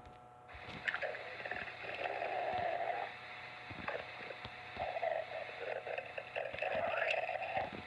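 Stomach growling: a gurgling, burbling rumble that starts about half a second in and comes in several uneven swells, with small wet clicks along the way.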